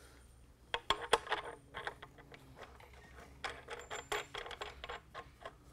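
Steel washer and nut clinking against the threaded end of a carriage bolt as they are fitted on by hand: two bursts of quick metallic clicks, about a second in and again around four seconds in.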